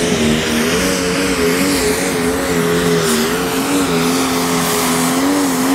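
Pro Stock pulling tractor's turbocharged diesel engine running hard under load, its pitch wobbling up and down without letting off.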